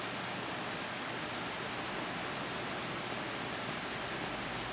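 Steady, even hiss of room tone with no distinct events.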